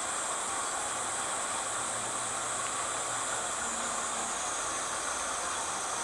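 Steady hiss of rushing water at an even level, with no distinct events.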